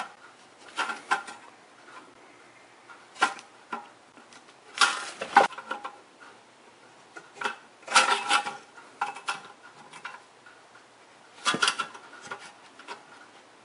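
Flathead screwdriver pushing up the metal retaining tabs of a car-radio mounting sleeve set in a plastic dash kit. The sound is a series of short metallic clicks and scrapes with quiet gaps between them.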